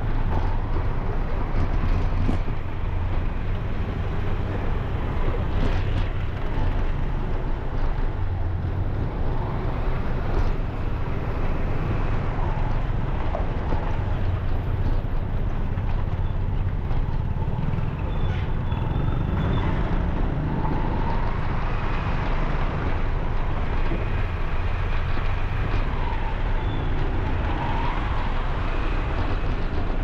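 Road traffic running steadily: a continuous rumble of vehicle engines and tyres, with a few faint short higher sounds on top.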